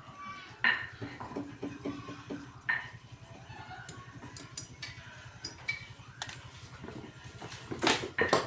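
Small metal tools and fittings clinking and knocking as they are handled, with a cluster of louder clanks near the end, over a low steady hum.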